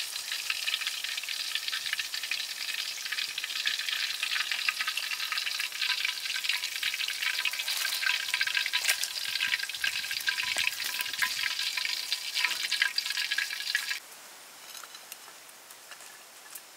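A whole fish deep-frying in hot oil in a steel wok: a dense, crackling sizzle that stops abruptly near the end.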